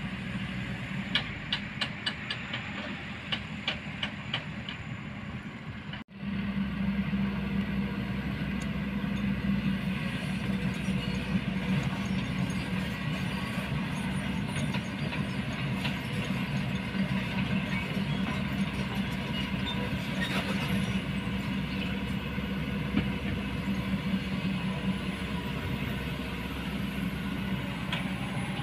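Diesel engines of Kobelco hydraulic excavators running under load as they dig, a steady low drone, with a run of sharp metallic clicks and clanks in the first few seconds. The sound cuts out briefly about six seconds in and comes back louder.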